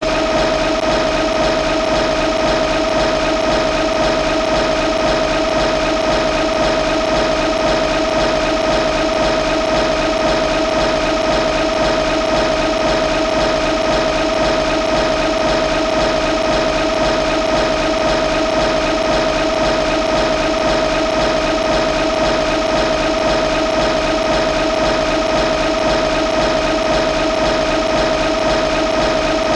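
Sound effect of Showa Mechagodzilla's spinning hand: a steady mechanical whirring buzz with one strong held tone and a fast, even pulse, unchanging in pitch and loudness.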